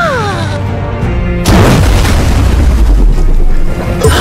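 Cartoon sound effects over background music: a short falling tone, then about a second and a half in a sudden loud boom with a low rumble lasting about two seconds, and another hit near the end.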